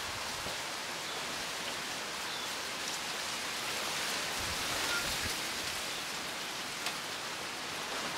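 Wind blowing through trees, tree ferns and palm fronds: a steady rustle of leaves with small swells.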